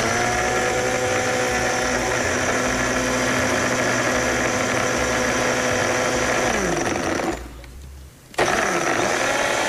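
Countertop electric blender running steadily, churning ice cubes and watermelon chunks with water. About six and a half seconds in, its motor pitch falls as it winds down and stops; a second later it is switched on again and spins back up.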